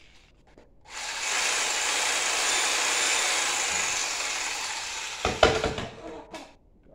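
Corded Makita JR3000V reciprocating saw cutting through a board with a steady rasping noise for about four seconds, then a few loud knocks as the cut ends.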